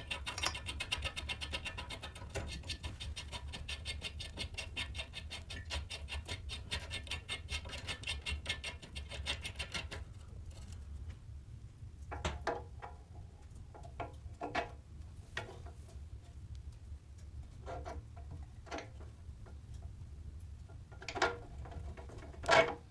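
Rapid, even metallic clicking for about ten seconds, then a few separate scrapes and knocks of hand tools on the painted steel frame of a moped, the loudest knock near the end.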